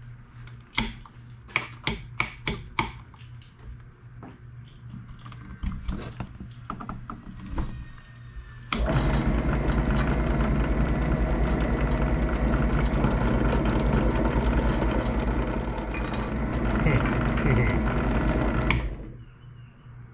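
A run of sharp clicks from handling parts, then a benchtop drill press motor is switched on about nine seconds in. It runs steadily for about ten seconds while a hole is drilled in a PVC pipe cap, then is switched off and winds down.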